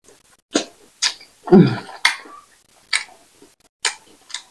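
Close-miked eating sounds of fufu and banga soup: wet lip smacks and chewing clicks about once a second. A louder short low throat sound comes about a second and a half in.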